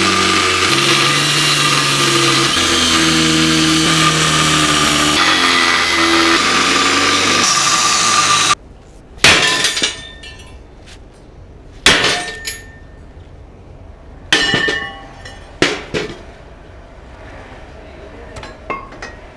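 Angle grinder cutting through a steel plate, running steadily with a high whine for about eight and a half seconds and then stopping abruptly. Afterward come a few sharp metal knocks and clinks, a couple of seconds apart.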